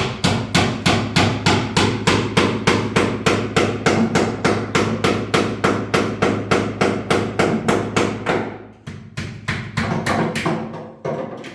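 A machine knocking in a steady rhythm, about four sharp strikes a second, over a constant motor hum. The knocking breaks off briefly about nine seconds in, then resumes and stops near the end.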